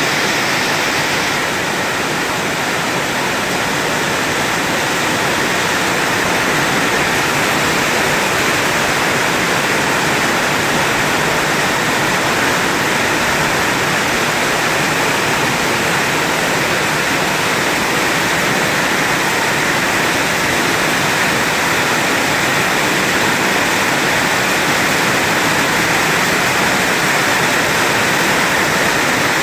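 Heavy rain pouring down in a steady, even rush of water noise.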